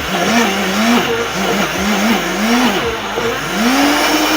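Silver Crest blender motor running at full power, its blades crushing dry roasted peanuts with no oil added. The motor pitch wavers up and down as the load shifts, then rises and holds higher near the end.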